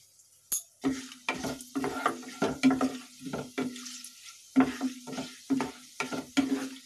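Wooden spatula stirring whole spices in hot oil in a non-stick kadai: repeated scraping strokes about twice a second over the sizzle of the oil, with a short pause partway through.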